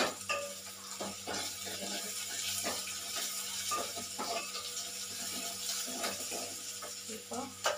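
Onions frying in oil in an aluminium pot, sizzling steadily, with a spoon scraping and knocking against the pot now and then as they are stirred.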